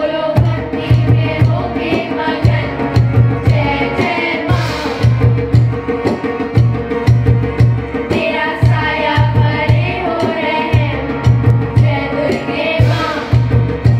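A group of children singing a song together into microphones, over a steady drum beat.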